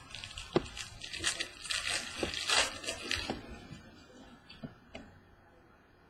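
Rustling and crinkling of trading-card packaging and cards being handled, with a few sharp clicks, busiest for the first three seconds, then a couple of faint ticks.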